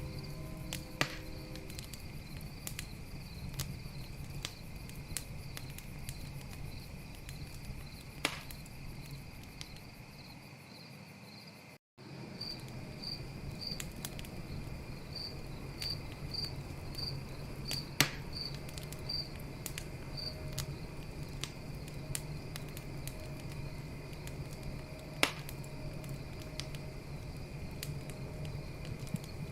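Campfire crackling, with frequent small clicks and a few louder pops, over a steady chorus of night insects such as crickets trilling and chirping. The sound cuts out completely for a moment just before the middle.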